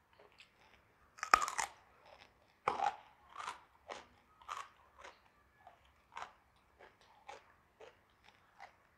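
Close-miked mouth crunching into raw jengkol (dogfruit): two loud crunchy bites a little over a second apart, then steady chewing crunches about twice a second that gradually grow fainter.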